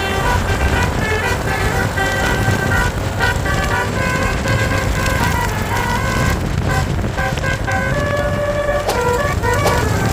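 A tour bus's basuri (telolet) musical horn playing a continuous string of quick melody notes, over the rumble of engine and road noise.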